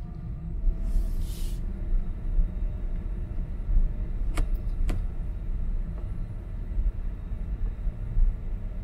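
Low, steady rumble of tyres on pavement heard inside the cabin of a slow-rolling electric car, a 2021 Tesla Model Y, with no engine note. There is a brief hiss about a second in and two sharp clicks half a second apart midway.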